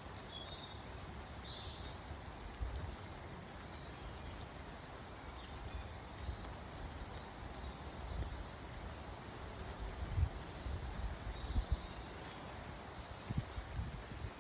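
Steady light rain falling in woodland, with small birds giving short high chirps throughout. Irregular low thuds come in, loudest about two-thirds of the way through.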